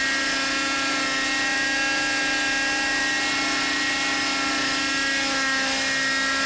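RJX Extreme 50 two-stroke nitro glow engine of a radio-controlled helicopter running at high speed in flight. It gives a steady, high-pitched whine that shifts slightly in pitch about five seconds in. The engine is still in its break-in period.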